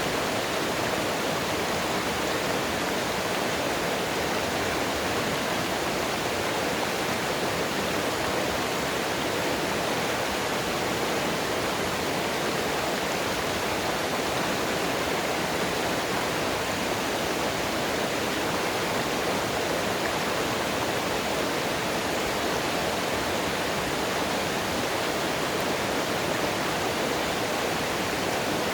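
Steady rush of flowing mountain water, an even hiss that holds without a break.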